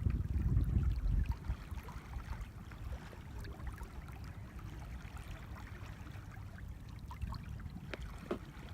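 Outdoor lakeshore ambience: wind rumbling on the microphone, strongest in a gust during the first second or so, over a steady wash of water with small scattered ticks.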